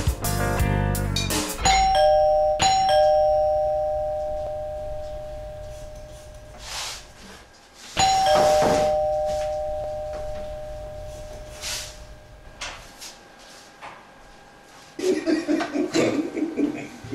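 Two-tone doorbell chime, a high note then a lower one, each ringing and fading slowly: two quick ding-dongs about two seconds in, then one more about eight seconds in. The door is answered near the end, with a man's voice.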